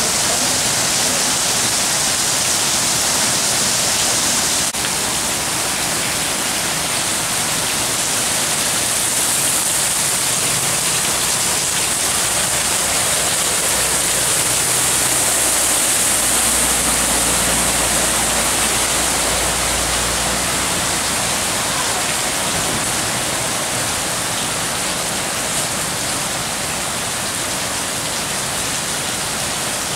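Torrential rain pouring down onto a flooded street, a loud steady hiss. About halfway through, a vehicle's low engine rumble rises and fades as it drives through the floodwater.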